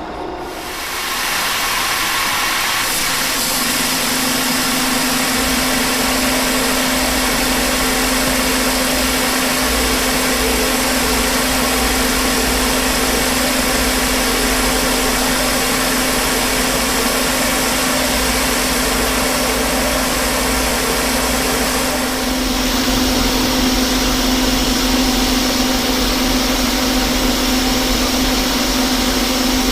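Metal-turning lathe starting up and running with a heavy steel shaft in the chuck: a steady hum under a loud, even hiss, the hiss changing character about 22 seconds in.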